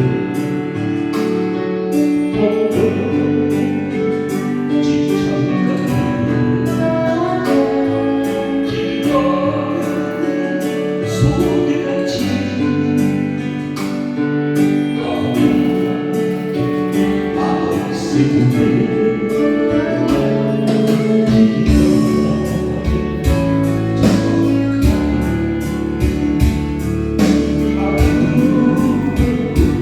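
Korean trot ballad played as a karaoke accompaniment with a steady beat and sustained instrumental lines, with a singer's voice over it.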